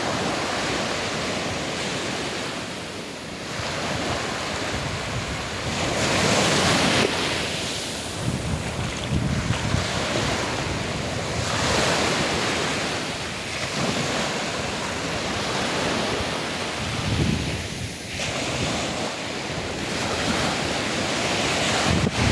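Small waves breaking at the shoreline and washing up over sand, the surf swelling again every few seconds. Wind buffets the microphone underneath.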